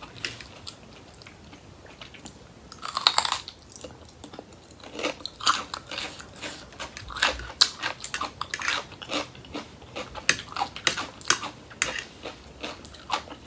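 Close-up eating sounds: a crunchy bite about three seconds in, then steady crunchy chewing of crisp raw vegetables in a spicy noodle salad with shrimp and squid, with many short crackles.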